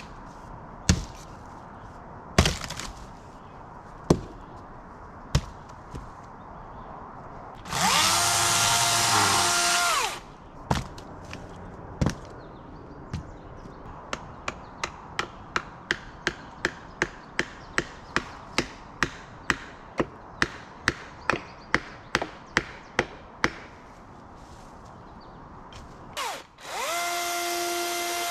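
An electric power tool's motor spins up and runs at a steady whine for about two seconds, then starts again near the end. Between the runs come a few sharp knocks of wood and a long series of regular clicks, about two a second.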